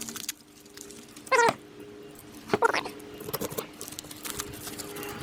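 A cat meowing twice, two short wavering calls a little over a second apart, followed by light clicks and handling noises.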